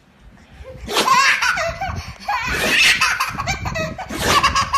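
Baby belly-laughing in repeated high-pitched bursts, starting about a second in.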